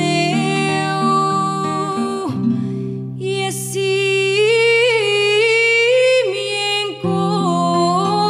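Slow, gentle song with acoustic guitar accompaniment. A long held melody note with vibrato runs through the middle, over low sustained notes.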